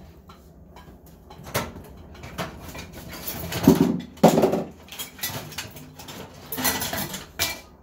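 Kitchen handling noises: scattered clicks and knocks of things being moved about, with two louder knocks a little past the middle.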